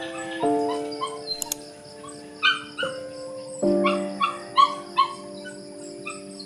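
A dog yipping and barking in short, repeated, high-pitched yelps over soft background music with sustained chords.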